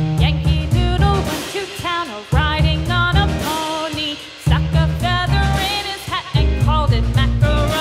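Background music: a melody over a steady bass and drum beat, with the low beat dropping out briefly twice.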